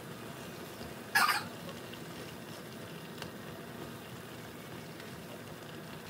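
Jjajang ramen noodles and sauce simmering in a frying pan, a steady sizzle, while chopsticks stir and lift them. A brief louder sound about a second in.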